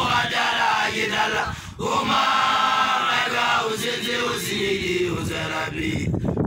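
Young Basotho initiates' voices chanting a song together.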